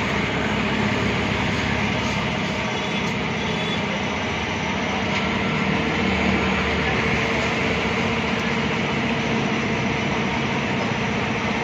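Steady mechanical running noise, a low pulsing drone with a hiss over it that holds even throughout.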